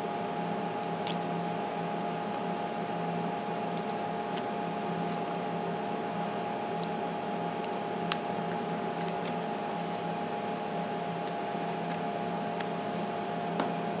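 Steady mechanical hum with several fixed tones, with small clicks and taps from a smartphone being handled on a workbench; the sharpest click comes about eight seconds in.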